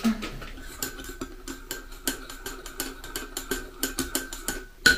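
Spoon stirring a drink in a cup, a rapid irregular clicking of the spoon against the cup walls, with a faint steady high tone beneath it from about a second in.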